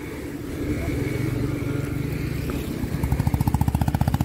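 Road traffic: a motor vehicle's engine rumbles past, growing louder, and about three seconds in a fast, even pulsing sets in.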